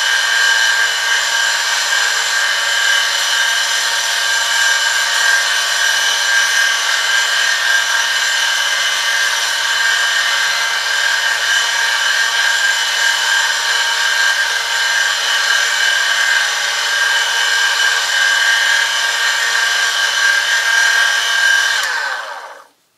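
Oil friction test rig running under a 1 kg load: a steel test sample pressed against a motor-driven spinning shaft, lubricated with the test oil, gives a loud, steady, high-pitched metal-on-metal screech over a low electric motor hum. About 22 seconds in it dies away quickly as the motor stops.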